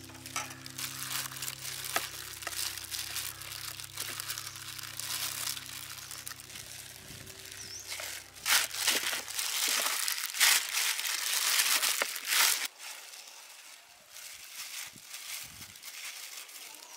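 Disposable plastic gloves crinkling and rustling as hands knead sticky rice flour dough in a stainless steel bowl. The crinkling comes in irregular squeezes and is loudest a little past halfway, then goes quieter.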